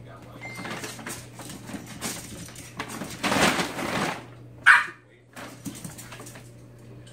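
Small long-haired dog scuffling about, with one short, sharp bark a little past the middle.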